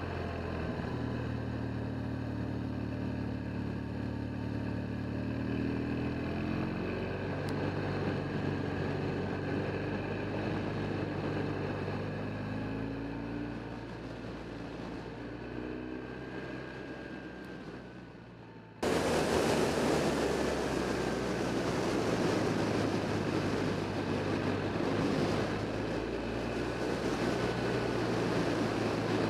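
Motorcycle engine running under way, its pitch stepping and sliding as the rider works the throttle and gears, then dropping and fading as the bike slows. A little over halfway through the sound cuts abruptly to a louder rush of wind on the microphone, with the engine still running beneath it.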